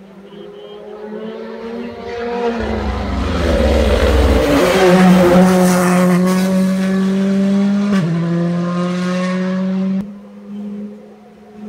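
Rally car engine accelerating hard toward the microphone and passing close, its note climbing and growing loud, then stepping down in pitch about eight seconds in. Near the end a faint engine is heard from further off.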